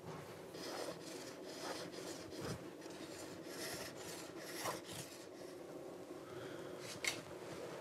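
A thin bamboo fishing-rod tip being shaved down with a hand shaving tool: a series of soft scraping strokes of the blade along the bamboo, about one a second, with a sharp click about seven seconds in.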